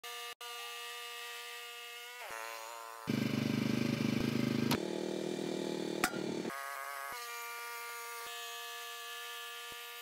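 Portable bandsaw sawmill running with a steady buzzing whine, which dips in pitch a couple of seconds in. Between about three and six and a half seconds there is a louder, rougher, deeper stretch.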